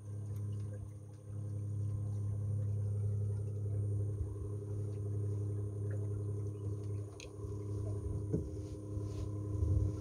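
Electric drive motor of a solar-powered boat humming steadily while cruising.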